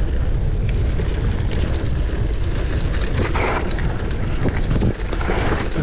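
Wind buffeting the microphone on a mountain bike going fast downhill, with the bike's tyres rumbling and crackling over a dirt trail strewn with dry leaves and the bike rattling over bumps. Short hissing scrapes surge about three seconds in and again near the end.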